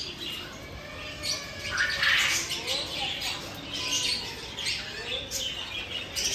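Many caged birds chirping and squawking at once, short calls overlapping throughout.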